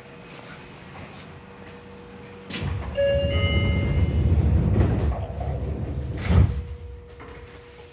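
Seibu 6000-series commuter train's sliding doors closing: a loud rumble of the doors in motion starting about two and a half seconds in, with a few short beeping tones, ending in a sharp thud as the doors shut about six seconds in.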